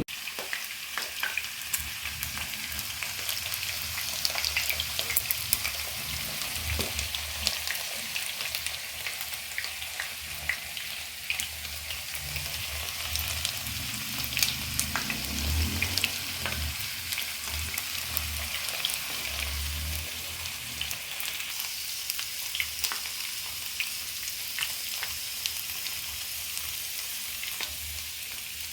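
Food frying in a pan: a steady sizzle dotted with sharp crackling pops, with a few low bumps in the middle stretch.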